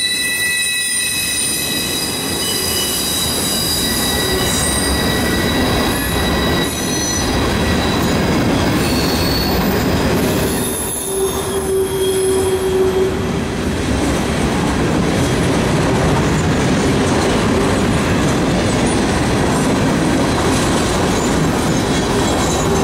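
Freight cars of a passing train (loaded bulkhead flatcars and gondolas) rolling by at close range: a steady rumble of wheels on rail, with high-pitched wheel squeal ringing through the first half and dying away about halfway through.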